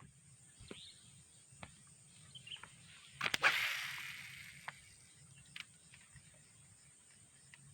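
A fishing rod cast about three seconds in: a sharp swish and then a hiss that fades over about a second as the line pays out, with small clicks of reel handling around it.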